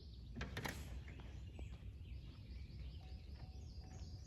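Small birds chirping and singing, with a low steady rumble and a brief knock about half a second in.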